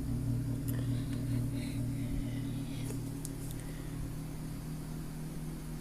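Steady low hum, its deepest part dropping away about two seconds in, with a few faint clicks and rustles of handling.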